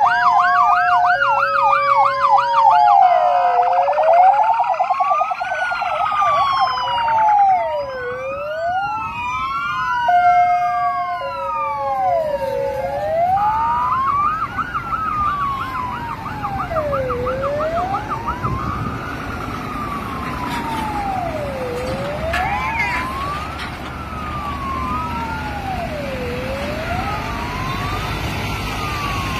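Several emergency-vehicle sirens sounding together: slow wails rising and falling every few seconds, fast yelps and a two-tone hi-lo siren. From about two-thirds of the way in, a single slow wail carries on over low road rumble.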